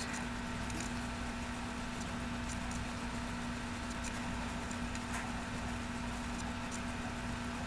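Room tone: a steady low hum and hiss, with a few faint clicks as the fabric daisy petals are handled.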